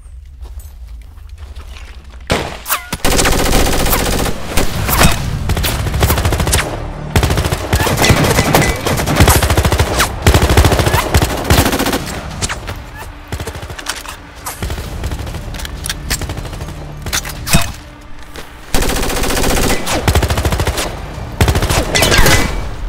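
Automatic gunfire in long, rapid bursts, starting about two seconds in over a low drone. The fire thins out midway and comes back in another heavy burst near the end.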